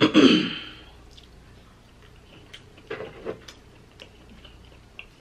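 Cooked crab legs being broken open: a loud crack and crunch of shell right at the start, then quieter scattered clicks and snips as the shell is pulled apart and cut with scissors.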